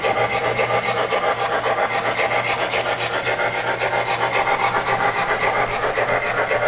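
Proto-Sound 3.0 decoder of an MTH HO scale PRR 2-8-2 USRA Light Mikado steam locomotive running under way. Rapid, even steam exhaust chuffs, about five a second, play from its speaker over a steady low hum.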